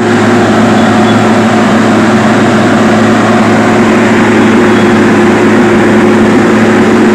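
Heavy road-construction machine's engine running steadily at a constant pitch, with a deep, unchanging hum.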